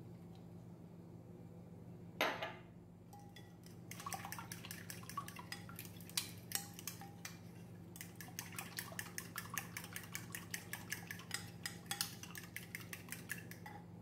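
Egg, milk and cornstarch batter being stirred briskly in a glass bowl: a utensil clicks rapidly and regularly against the glass, several strokes a second. A single louder knock comes about two seconds in, as a glass is set down on the stone counter.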